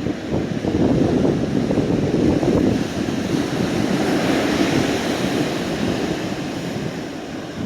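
Strong, gusty wind buffeting the microphone over surf breaking on a sandy beach, stirred up by an approaching typhoon. A louder wash of hiss swells about four seconds in.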